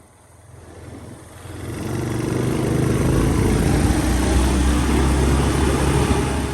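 Arctic Cat 400 4x4 ATV engine running, its carburetor freshly repaired, getting louder over the first two seconds and then holding steady and loud.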